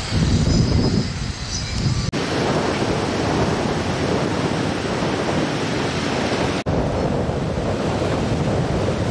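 Wind buffeting the microphone, then, after an abrupt cut about two seconds in, steady ocean surf washing onto a sandy beach mixed with wind noise. A second abrupt cut comes about two-thirds of the way through.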